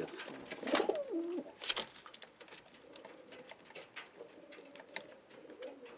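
Domestic racing pigeons cooing, loudest about a second in, with scattered light taps and scuffs.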